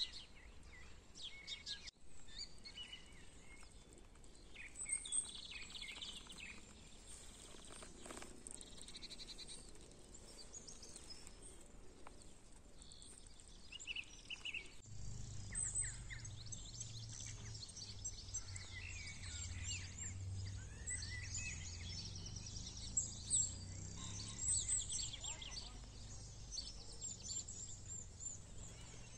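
Birds singing and chirping, many short high calls and trills overlapping throughout. A low steady rumble comes in about halfway through and stays underneath.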